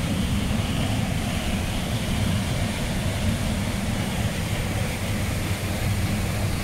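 Steady rush of a small waterfall spilling into a river pool, with the running water of the river.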